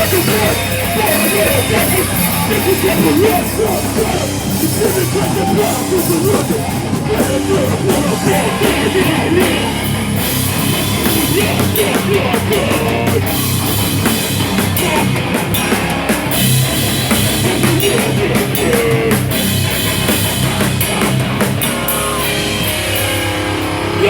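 Live rock band playing loudly: distorted electric guitars over a full drum kit, with cymbals and steady drum hits.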